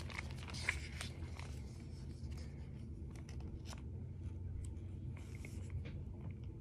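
Faint rustling and small clicks of a sheet of paper being held and touched, over a low steady hum of room tone.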